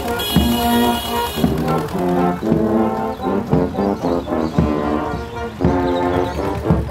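Brass band playing a march, with a bass drum beating about once a second under the brass melody. A set of steady high tones sounds over it and cuts off about a second and a half in.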